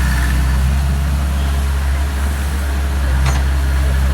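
Sumitomo SH60 excavator's diesel engine running steadily with a low, even drone, and a light click about three seconds in.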